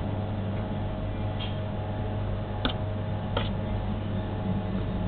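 Steady low hum with a few faint, short clicks.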